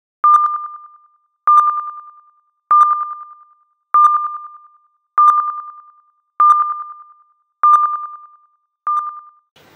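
Electronic sonar-style ping sound effect: eight identical pings of one steady tone, about one every 1.2 seconds, each starting sharply and dying away over about a second.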